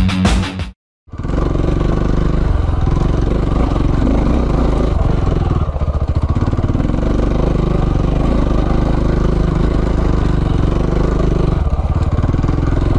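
Rock music briefly, cut off suddenly; then a KTM 690's single-cylinder engine running steadily as the motorcycle is ridden, with small dips in throttle now and then.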